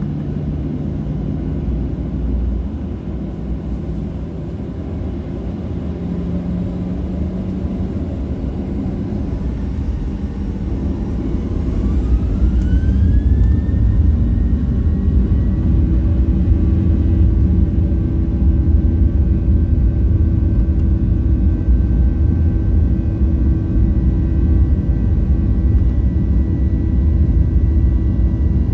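Boeing 737-800's CFM56-7B turbofan engines heard from inside the cabin, spooling up to takeoff thrust. A steady low rumble is joined about ten seconds in by a rising whine that levels off into a steady high tone about thirteen seconds in, while the rumble grows louder as the takeoff roll begins.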